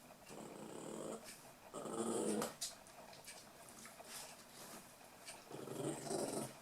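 Toy poodle puppies growling in play: three short bouts of growling, the loudest about two seconds in, with light clicks and taps between them.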